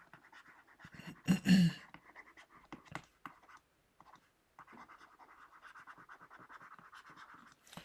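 Stylus nib scratching across a tablet surface in quick short strokes as words are handwritten, faint and continuous for the last three seconds. A brief murmur from the writer's voice comes about a second and a half in.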